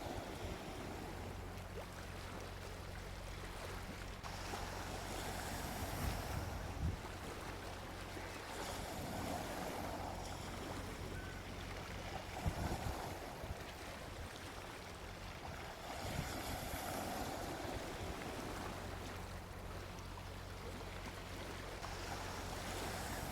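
Gentle ocean waves washing onto a beach, each surge swelling and then receding every few seconds.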